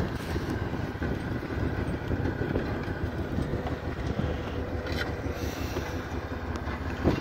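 Steady low engine rumble of a Workmaster 60 tractor pulling a disc harrow across the field, with a brief knock near the end.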